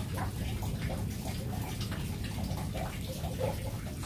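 Pond water sloshing and lapping at the surface, stirred up by fish, with scattered faint drips and ticks.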